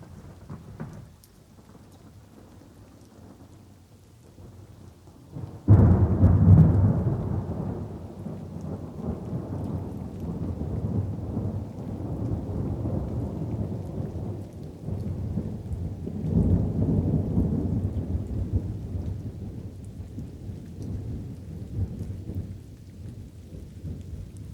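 Thunder over light rain: a sudden loud thunderclap about six seconds in that carries on as a long low rumble and swells up again about two-thirds of the way through.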